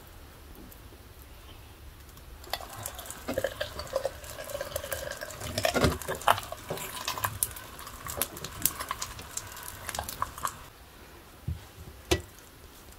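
Hand-cranked cast-metal meat grinder turning as it grinds dried dates, its crank and auger squeaking and clicking from about two and a half seconds in to about ten and a half seconds. A couple of separate knocks follow near the end.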